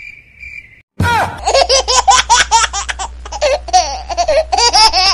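Crickets chirping in quick regular pulses, then about a second in a sudden loud burst of high-pitched laughter, rapid repeated 'ha' sounds that run on until near the end over a low hum.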